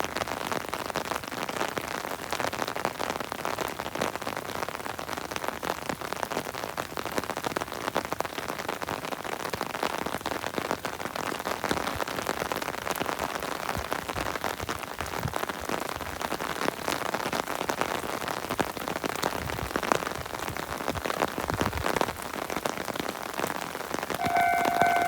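Steady rain falling, a constant hiss with many small drop clicks. About a second before the end, a railway level-crossing alarm starts ringing.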